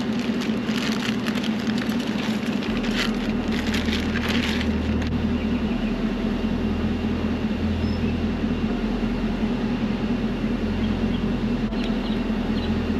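A vehicle engine idling steadily, with light clicks and rustles of parts being handled during the first five seconds or so.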